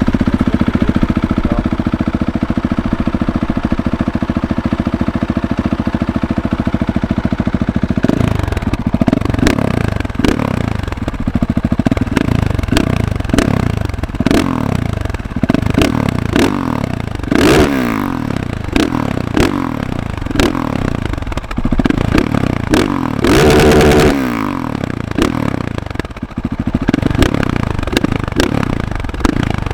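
Husqvarna 701 Supermoto's single-cylinder engine, breathing through a Leo Vince exhaust, idling steadily, then from about eight seconds in revved in repeated quick throttle blips, with one longer, higher rev a few seconds before the end.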